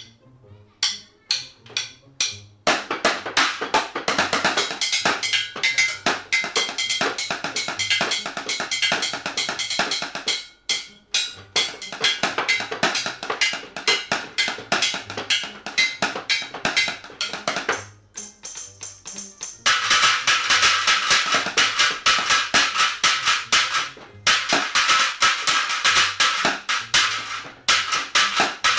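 Drumsticks playing a fast drum-kit groove on household objects used as an improvised drum kit: sharp clacks and knocks on chairs, a box and a plastic container. A few sparse strikes open it, and the playing turns dense a few seconds in. It breaks off briefly twice, around a third of the way and again past halfway, then comes back brighter and busier for the last part.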